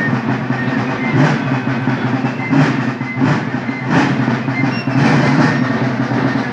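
Drums of a Napoleonic-uniformed folk marching company playing a steady rolling march, heard from down the street, with heavier strokes about once a second.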